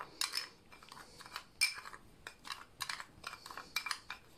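A metal teaspoon stirring a dry salt-and-spice mix in a small glass bowl: irregular light clinks and gritty scrapes of the spoon against the glass, several a second, some with a short ring.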